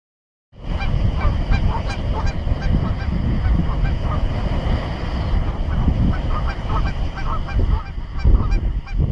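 Many short honking calls, several a second, over a steady low rumble of ocean surf and wind.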